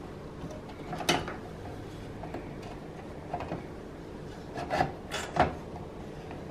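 Hands handling wiring and plastic connectors inside an open desktop computer case, making a few short scraping rubs. The loudest come about a second in and around five seconds in.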